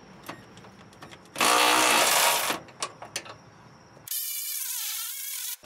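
A handheld power tool runs in a loud burst of about a second on a suspension bolt, with a few metal tool clicks. About four seconds in, a second, thinner and higher-pitched run lasts about a second and a half and stops abruptly.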